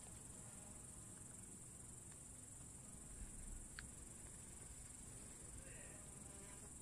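Near silence with a steady high-pitched chirring of crickets. There is a single faint click a little under four seconds in.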